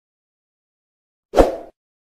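A single short pop sound effect from a subscribe-button animation, coming in sharply about a second and a half in and fading within half a second. Silence before it.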